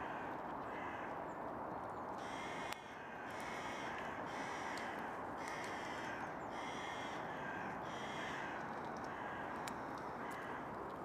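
Crows cawing repeatedly, a run of short harsh calls about one a second, strongest between about two and nine seconds in.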